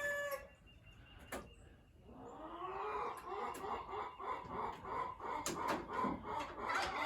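Chickens clucking in a run of short, repeated calls, with the last moment of a rooster's crow right at the start. After a brief lull the clucking builds from about two seconds in, with a few light knocks among it.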